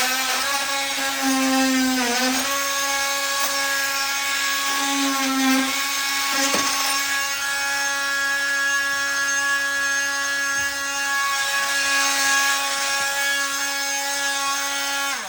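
Makita electric power tool running continuously with a steady high whine while tearing out old laminate flooring, its pitch sagging briefly under load about two seconds in, with a single knock around six and a half seconds.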